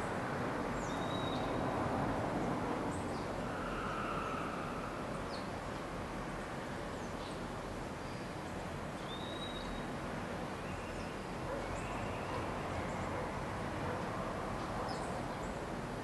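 Birds chirping over a steady outdoor background noise: many short, high chirps scattered through, with a brief whistled note about a second in and another about nine seconds in.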